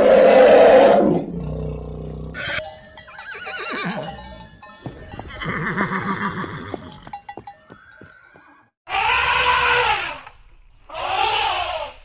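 Several separate animal calls one after another: a loud call at the start, a horse's whinny around the middle, and two short calls near the end.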